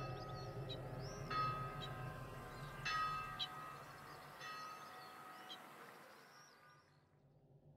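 Bell-like chime tones, struck four times about a second and a half apart, each ringing on over a low hum. The sound fades away near the end.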